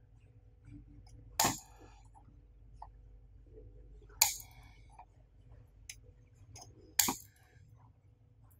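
Snips clipping the protruding metal leads of components on an induction cooktop's circuit board: three sharp snaps, roughly three seconds apart, each with a brief metallic ring.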